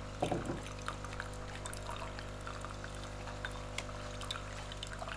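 Polaris PACM 2060AC automatic coffee machine running its cleaning cycle: water trickles through its tube and spout into a glass jar over a steady machine hum. A short knock comes about a quarter second in.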